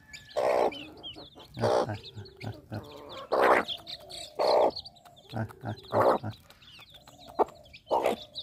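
Mother hen clucking in short, loud calls about once every second or so, with chicks peeping faintly and high between the clucks.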